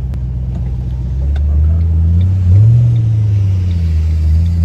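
Ford Mustang GT's 4.6 L three-valve V8 through a Pypes Violator axle-back exhaust, heard from inside the cabin with the windows down, accelerating: the exhaust note gets louder and rises in pitch about a second in, with a dip in pitch near three seconds in, as at a gear change.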